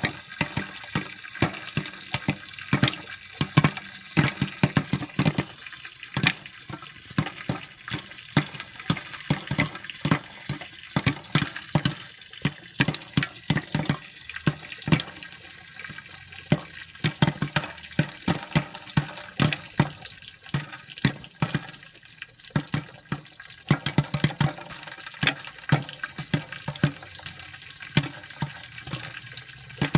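Popcorn kernels popping: a dense, irregular run of sharp pops, several a second, over a steady hiss of the hot pan.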